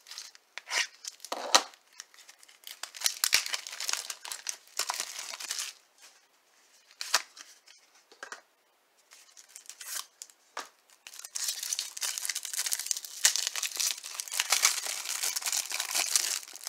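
Clear plastic wrapper of a trading-card pack crinkling and tearing as it is peeled open by hand. It comes in short bursts at first, then a long stretch of continuous crinkling late on.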